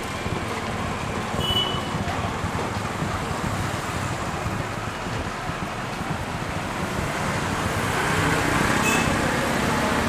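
Street traffic noise: motor vehicles running and passing, with the sound swelling near the end as one comes closer.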